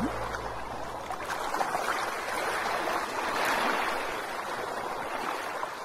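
Water ambience: an unsteady rushing and lapping of water, with no music. The song's last note slides upward and cuts off at the very start.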